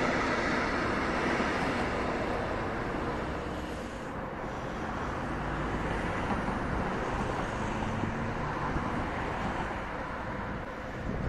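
Passenger coaches rolling past on the rails, the rushing noise fading as the last car, the control car, goes by. About four seconds in it gives way to a quieter, steady low rumble of a double-deck Intercity train rolling along a far track.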